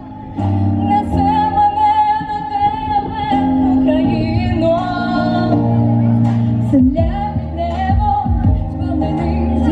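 A song: a woman's voice singing long, wavering held notes over instrumental accompaniment, with a steady beat coming in about seven seconds in.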